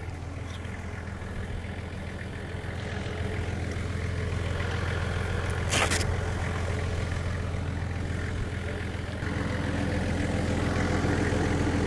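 A 4WD's engine idling steadily, with one sharp knock about six seconds in. A louder steady hum joins a little after nine seconds.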